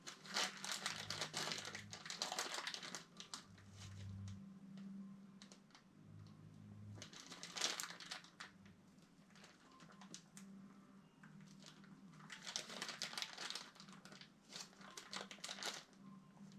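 Crinkling and rustling in three bouts, with small clicks and taps in between, as material is handled up close.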